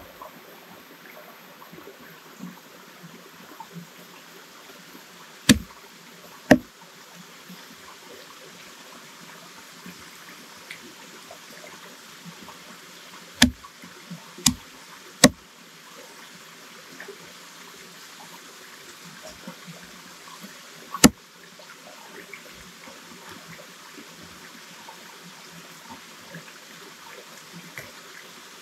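Steady wash of running water, with six sharp knocks or cracks standing out above it: two about five and six seconds in, three close together around the middle, and one about two-thirds of the way through.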